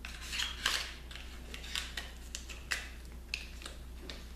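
Makeup items being handled by hand: a run of irregular sharp clicks with a short rustle near the start.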